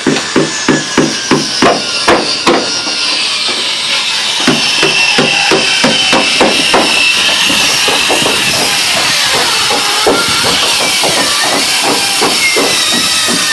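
Hammer driving nails into timber roof framing: a quick, even run of about three blows a second in the first couple of seconds, a second run of blows a few seconds later, then a steady noise with a wavering tone.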